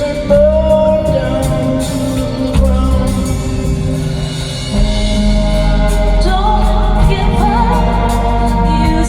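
Live concert music: a band plays under a singer holding long, wavering notes, with bass notes changing beneath and the melody stepping up about six seconds in.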